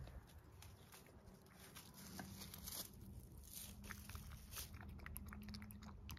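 A cat licking lickable treat paste from a small cup: a run of faint, wet lapping clicks that begins about two seconds in and quickens toward the end.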